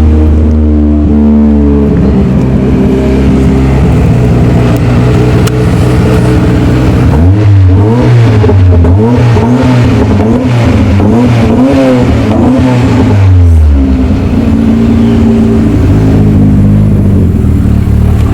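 Ford Escort RS Cosworth's turbocharged four-cylinder engine running at a steady note. About seven seconds in, the revs climb and drop repeatedly, roughly once a second for about six seconds, then settle back to a steady note.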